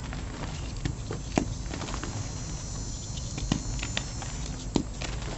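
Dyed gym chalk chunks crumbled and squeezed by hand: scattered crisp crunches and cracks over a soft gritty rustle of chalk grains, the sharpest cracks about a second and a half in and near the end.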